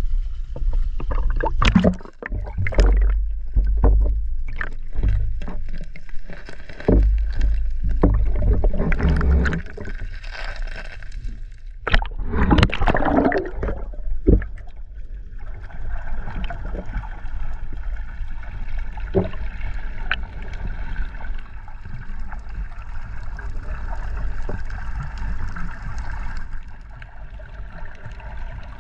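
Water splashing and gurgling right at the camera during snorkeling, choppy and irregular with low rumble for about the first half, then settling into a steadier, muffled wash of water.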